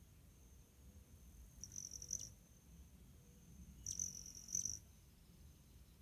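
A hummingbird's wings buzz in two short, high-pitched trills, about two seconds apart, over a faint steady high whine.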